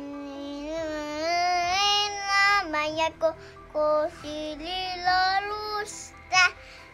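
A toddler singing in a high voice: several drawn-out, wavering notes in short phrases, with brief breaks between them.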